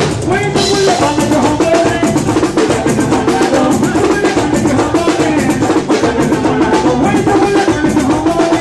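Live band playing an instrumental stretch of an up-tempo dance song: fast, steady drumming with electric guitar and other pitched instruments over it.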